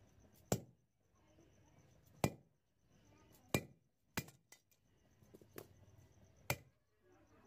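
Hammer striking steel pliers that grip a rusted fitting on an antique hacksaw frame, knocking it loose: sharp metal-on-metal blows, four hard strikes and several lighter taps, irregularly spaced, each ringing briefly.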